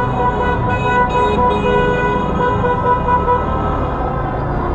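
Car horns honking in celebration, a long held note over a rumble of traffic.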